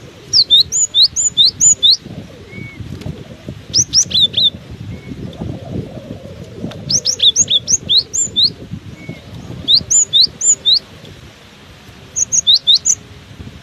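Cinereous tit (gelatik batu) singing in five bursts of quick, sharp whistled notes, each note sweeping downward. Wind buffets the microphone as a low rumble underneath.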